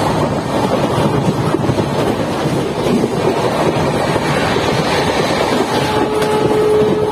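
LHB passenger coach running at speed, heard from its open doorway: a steady rush of wheel-on-rail noise and wind. A steady pitched tone joins about six seconds in.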